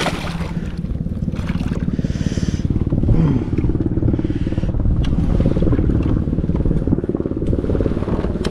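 A motor running steadily with a fast, even pulsing beat, with a few light rustles and knocks over it.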